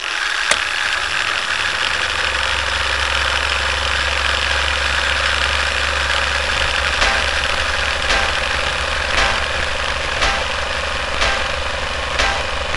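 Film projector running: a steady mechanical whirr and clatter. From about seven seconds in, a sharp tick comes about once a second, in time with a film-leader countdown.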